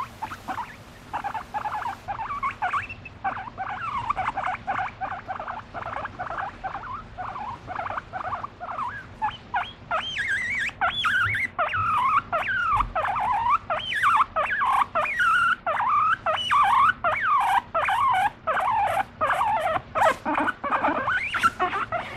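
Abyssinian guinea pig giving a steady stream of short squeaking calls that rise and fall in pitch while being stroked, growing louder and busier about halfway through; the owner takes them as her asking to be petted more.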